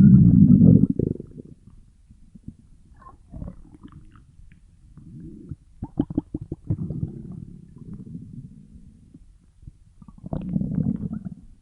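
Stomach growling and gurgling: a loud rumble in the first second, quieter gurgles after it, a run of quick pops about six seconds in, and another rumble near the end.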